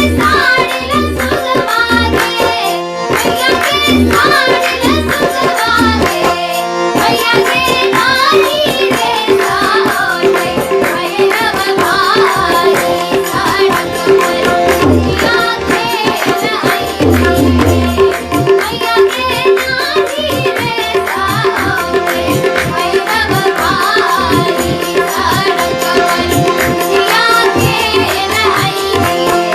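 Jhijhiya, a Maithili folk song, sung with tabla accompaniment and steady held notes underneath.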